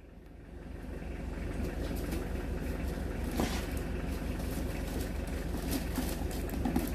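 A steady low mechanical rumble, like a motor or engine running, that builds over the first second and then holds, with scattered light clicks and taps over it.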